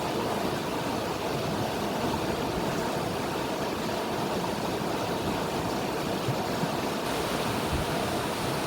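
River water flowing, a steady rushing noise with no breaks.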